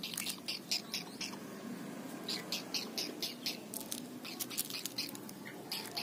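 Javan pond heron chicks giving short, sharp begging calls, several a second in irregular runs, as they are hand-fed chopped fish.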